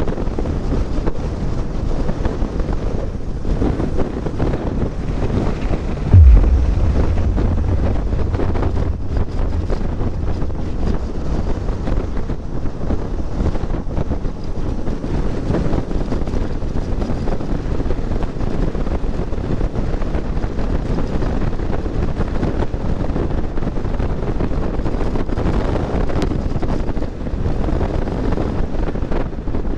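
Wind rushing over the microphone of a motorcycle at highway speed, steady and loud. About six seconds in, a sudden heavy low buffet of wind hits and fades out over the next few seconds.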